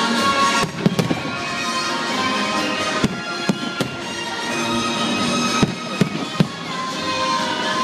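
Aerial fireworks shells bursting in a grand finale: about eight sharp bangs, some in quick pairs, over steady background music.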